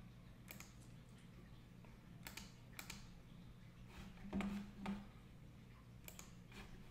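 Faint, sharp clicks of computer input at a desk, about seven in all, mostly in pairs about half a second apart, over a steady low hum.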